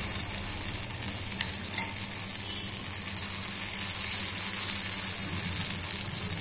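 Egg and chopped vegetable mixture sizzling steadily in hot coconut oil in a frying pan as it is spooned in and spreads out. A couple of faint clicks come about a second and a half in.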